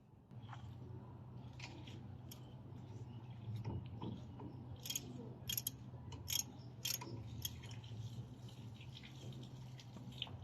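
A ratchet with a 12 mm socket clicking in scattered short bursts as it undoes a brake caliper bolt, over a steady low hum.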